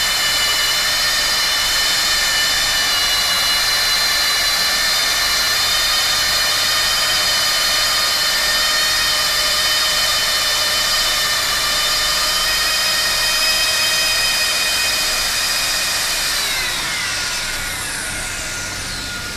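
Hand-held hot-air plastic welding gun running: a steady high blower whine over a hiss of air. About three-quarters of the way through, the whine glides down in pitch and gets quieter as the blower is turned down.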